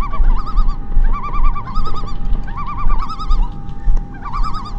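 Strong wind buffeting the microphone with a heavy, uneven rumble, while a bird chirps in short, rapid trills repeated about twice a second, some higher and some lower.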